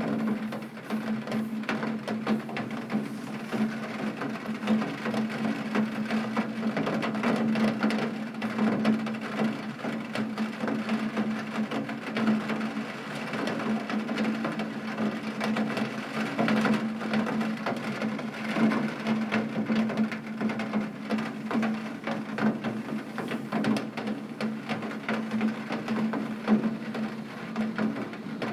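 Heavy rain striking a window pane: a dense, uneven spray of small drop hits over a steady wash, with a constant low hum underneath.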